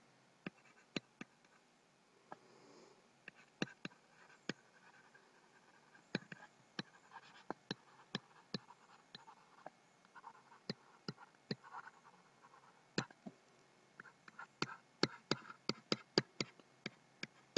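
Pen stylus writing on a tablet surface: faint, irregular clicks and light scratching as each stroke is made.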